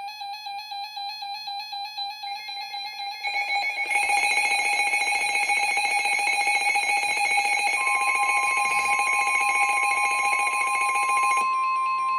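Emergency Alert System alert tones: a steady electronic alarm tone that turns louder and buzzier about four seconds in, joined by a second, higher steady tone about eight seconds in. It is the attention signal that announces a new weather warning.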